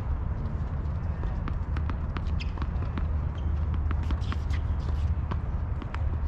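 Tennis balls bouncing on the hard court and being struck, heard as scattered sharp pops, under a steady low rumble.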